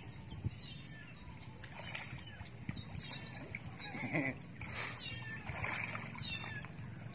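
A series of short, high-pitched animal cries, each falling in pitch, coming roughly once a second.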